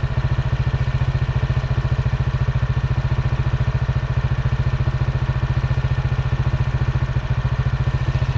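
An engine idling close by, with a steady, rapid, even pulse.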